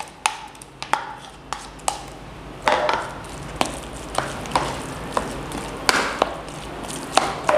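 Spoon clicking and scraping irregularly against a plastic bowl while mixing minced mutton with ground onion.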